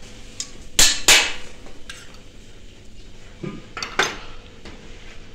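Metal spoon and cookware clinking and knocking: two loud strikes close together about a second in, then two more further on.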